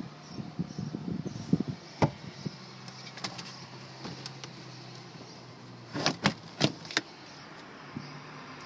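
Plastic clicks and knocks from a Porsche Cayenne's cargo-area trim being handled. A few single taps come first, then a quick run of about four sharp clicks a little after six seconds in, as the retractable cargo cover is pulled out and hooked into place. A steady low hum runs underneath.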